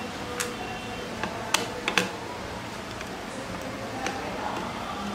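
Small screwdriver clicking and tapping against screws and the plastic case of a clamp meter as the circuit-board screws are worked. There are a handful of sharp clicks, the loudest a close pair about two seconds in.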